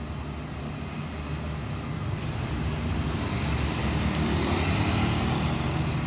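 Street traffic noise: a steady low rumble, with a vehicle's hiss swelling about three seconds in and easing near the end.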